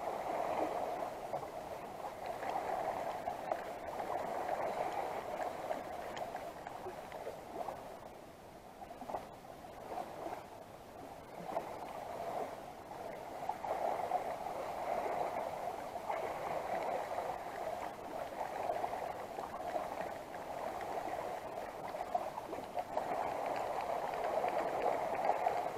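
Sea water lapping and sloshing against breakwater rocks, swelling and fading every few seconds.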